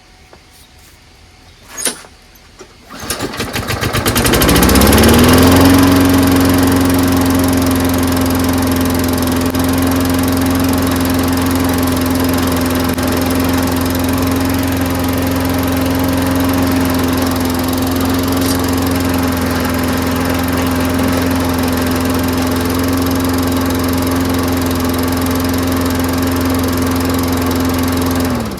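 Craftsman self-propelled lawn mower engine pull-started: a knock, a pull of the starter rope, then the engine catches at once, revs up, and runs steadily for over twenty seconds before cutting off suddenly near the end.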